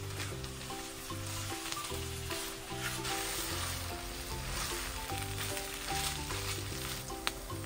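Shredded chicken sizzling in hot oil in a non-stick frying pan while a spatula stirs and scrapes it, with one sharp tap of the spatula on the pan near the end. Soft background music plays underneath.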